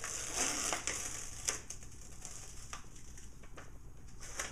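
Plastic silk-screen sheet being peeled off its blue backing sheet: a crinkly rustle for about a second and a half, ending in a sharp click, then a few faint handling ticks.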